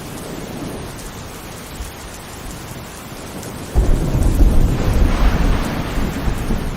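Heavy rain falling steadily; nearly four seconds in, a thunderclap breaks in suddenly with a deep rumble that eases off near the end.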